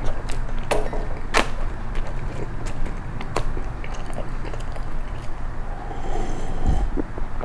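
Close-miked chewing of crisp toast, with sharp irregular crunches a few times over a steady low hum.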